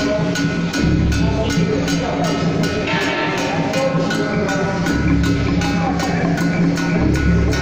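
Traditional Taiwanese temple procession percussion music: a quick, even metallic beat of about four strikes a second, with heavier drum hits every few seconds.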